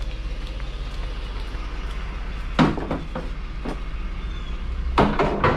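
Vehicle engine running with a steady low hum, a sharp clunk about two and a half seconds in and a few more clunks near the end.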